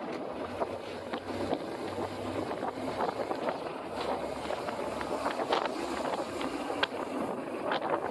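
Wind buffeting the phone's microphone while travelling along a road, with many short crackles over a low steady rumble.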